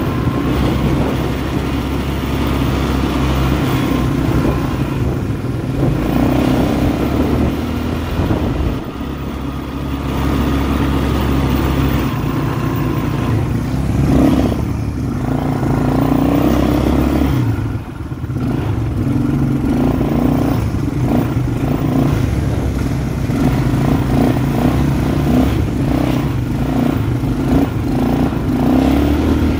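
ATV (quad bike) engine running under way on a dirt road, its pitch rising and falling with the throttle and easing off briefly twice.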